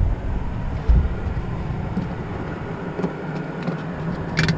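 Dinette table board and fittings being handled, with a dull thump about a second in and a sharp knock near the end, over a steady low rumble.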